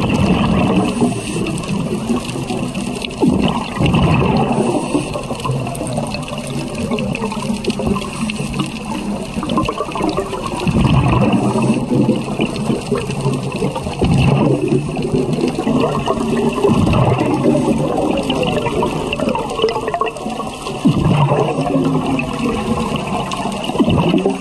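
Scuba diver's exhaled bubbles gurgling past an underwater camera, in surges every few seconds with each breath out, over a steady underwater hiss.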